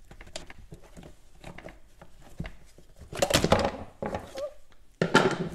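Handling noise of a chainsaw and its guide bar being moved on a wooden workbench: faint clicks, then two louder scraping, rustling bursts about three and five seconds in.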